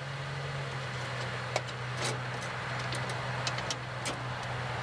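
Wood-gas truck gasifier's electric pusher blowers running with a steady low hum and rush of air, with a few sharp clicks about one and a half, two and four seconds in.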